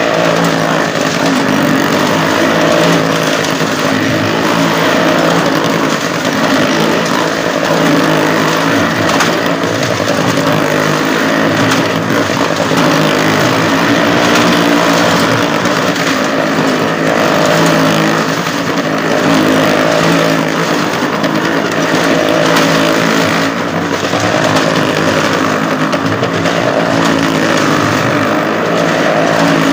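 Motorcycle engines running hard and steadily as the riders circle the vertical wooden wall of a well-of-death drum. The sound swells and fades slightly, again and again, with the laps.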